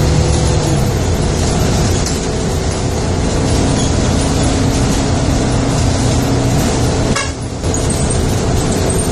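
Engine hum and road noise heard from inside a moving vehicle, a loud steady rumble that dips briefly a little past seven seconds in.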